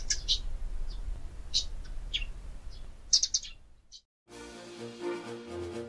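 Birds chirping in short, high bursts over a low rumble, stopping about four seconds in; after a brief gap, music begins.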